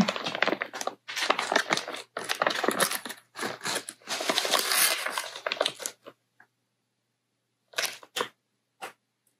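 Clear plastic zip-lock bag crinkling and rustling as hands handle and open it, in bursts for about six seconds, then two brief rustles near the end.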